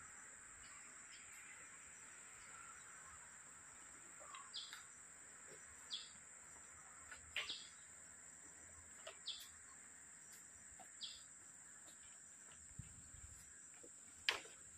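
Faint rural ambience: a steady high insect drone, with a bird giving short chirps several times in the middle. Near the end there is a single sharp knock, the loudest sound.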